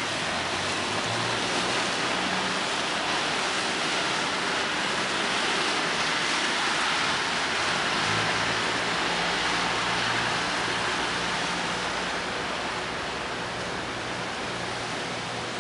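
Steady rushing noise of wind and water, with the low hum of a passing tour boat's engine that grows stronger about halfway through as the boat passes close by.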